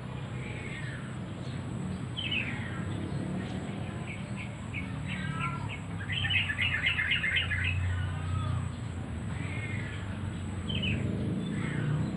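Wild songbirds chirping and calling: short falling-pitch chirps every second or two, and about six seconds in a quick run of about eight notes. A low rumble lies underneath.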